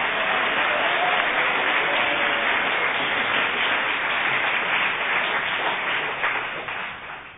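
Studio audience applauding after a comedy sketch, the applause dying away near the end.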